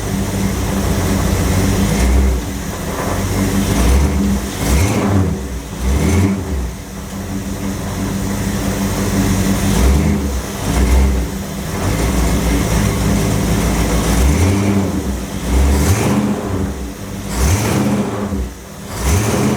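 Hot rod's engine running and revving with its 727 TorqueFlite automatic transmission, the engine note rising and falling several times. The transmission has just had a shift kit fitted and is being tested.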